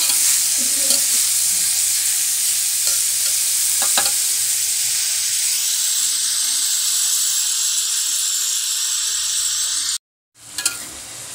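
Shredded young papaya with shallots, garlic and chilli sizzling in oil in an aluminium wok: a steady frying hiss, with a few clicks of the spatula against the pan in the first four seconds. The sound cuts out abruptly about ten seconds in and comes back quieter.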